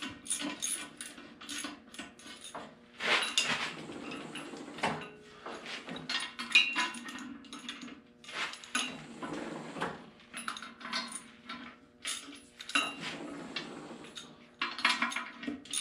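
Hand ratchet with a 3/4-inch socket clicking in short, irregular runs as the nuts on a tractor's rear axle hub are worked down slowly, mixed with light metallic clinks of the tools and parts.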